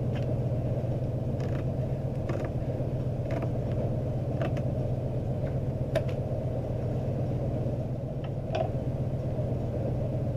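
A steady low mechanical hum, such as a running machine or motor, with a few faint, scattered clicks over it.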